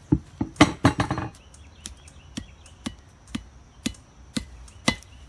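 Hand hammer striking a hot mokume gane billet on an anvil to set a forge weld: a quick flurry of blows, then steady blows about two a second.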